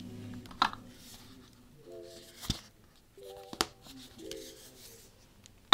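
Apple Pencil tapping and scratching on an iPad screen: a few light taps, the sharpest near the end, between soft rubbing strokes of writing. Quiet background music chords come and go underneath.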